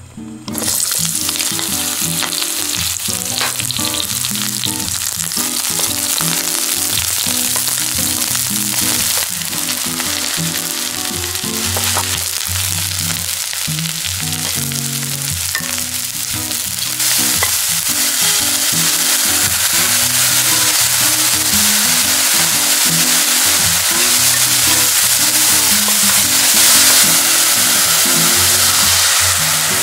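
Green onion and sliced button mushrooms sizzling in hot oil in a nonstick wok while being stirred with a wooden spatula. Stock is poured in near the end.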